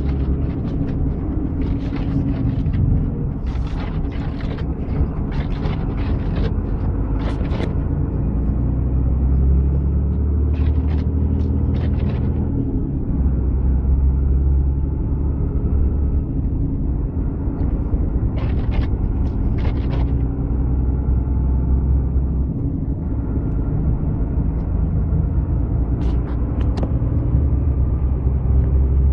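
Steady low rumble of a vehicle's engine and road noise while driving, with several short clusters of brief clicks and knocks.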